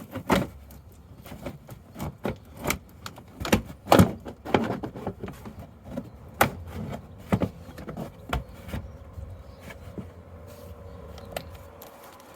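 Plastic wheel arch liner being pulled and worked free of a car's wheel arch: irregular knocks, clatters and scrapes of flexible plastic, the loudest about four seconds in, thinning out after about eight seconds.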